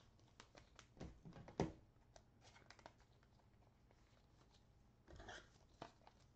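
Faint handling noises from trading cards and foil pack wrappers: scattered soft clicks and taps, with a brief rustle about five seconds in.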